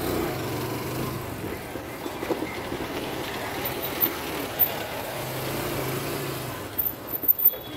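Motorcycle engine running at low speed over a railway level crossing and a rough road, with road and wind noise. There are a few sharp knocks near the end.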